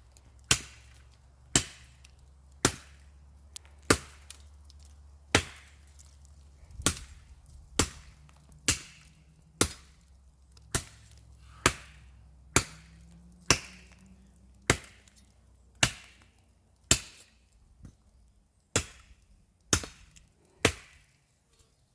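Machete chopping into dead, dry spruce wood: about twenty sharp blows, roughly one a second, each a crisp chop with a brief ring.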